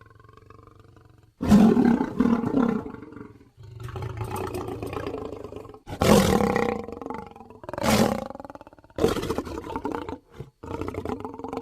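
Lion roaring: a quieter opening, then a loud roar about a second and a half in, followed by several more loud roars spaced a few seconds apart.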